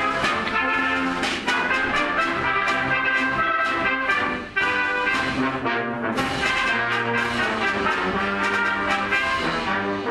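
Background music with several instruments playing together in a steady rhythm, breaking off briefly about four and a half seconds in.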